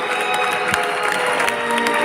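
Audience applauding and cheering: dense, fast clapping, with steady held musical notes under it.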